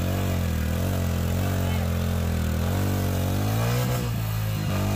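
Motorcycle engine revving, its pitch rising and falling again and again as the rider works the throttle to drive the heavy bike through deep, wet mud.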